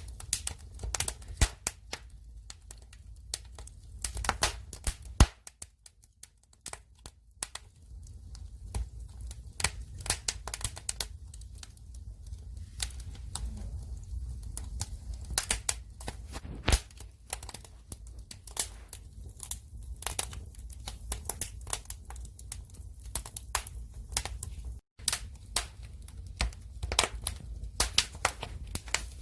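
Firewood fire burning: irregular sharp crackles and pops of the burning logs over a low, steady rumble. The sound cuts out for an instant near the end.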